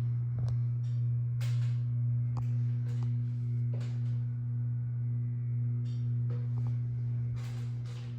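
Harbor Breeze Springfield II ceiling fan running, its motor giving a strong steady low electrical hum that swells and fades slightly.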